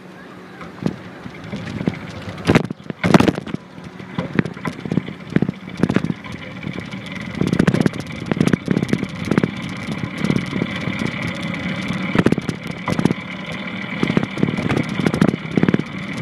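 Longboard wheels rolling on pavement with a steady rumble that grows louder over the first several seconds, over which come repeated irregular knocks and scrapes as the land paddle is planted on the ground to push, two strong ones about three seconds in.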